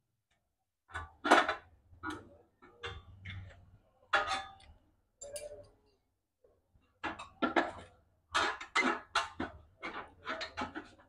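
Irregular metallic clinks and rattles of hand tools and metal parts being worked at the exhaust of a small petrol generator engine. They come in scattered groups, growing denser after about seven seconds.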